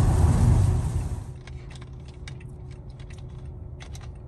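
Loud road and rain noise inside a car on a wet highway. About a second in it drops to a quieter cabin hum, over which come a string of small sharp clicks and crackles from a plastic soda bottle and its screw cap being handled and twisted.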